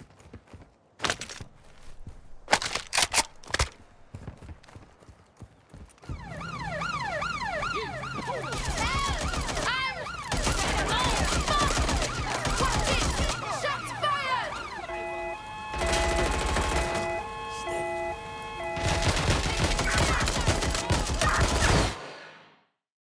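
Video game shootout audio: scattered gunshots, then police sirens wailing over a loud, dense din of gunfire. It cuts off suddenly near the end.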